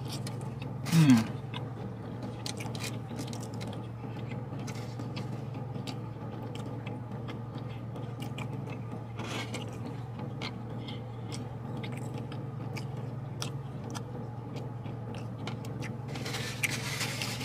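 Close-up chewing and biting of a chicken Philly sandwich, with small wet clicks and rustles, over a steady low hum in the car cabin. About a second in there is a short falling 'mmm' of approval.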